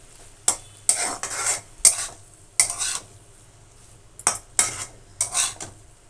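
Spatula scraping and stirring cabbage-and-potato curry in a kadai, in about seven separate strokes, each under a second long.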